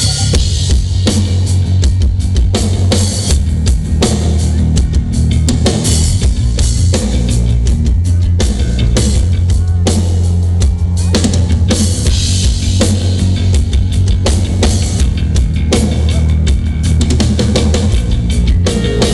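Live rock band playing loud through a PA during a sound check: drum kit with frequent kick, snare and cymbal hits over electric guitars and heavy bass, with no lead vocals.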